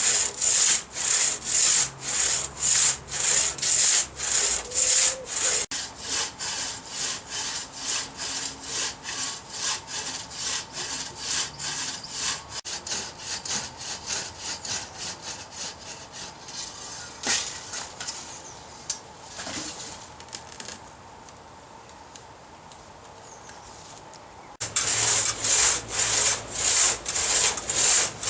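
Crosscut saw cutting a fallen eucalyptus log by hand, with rhythmic push-pull strokes about two a second. The strokes fade to a faint rasp for a few seconds, then come back loud near the end.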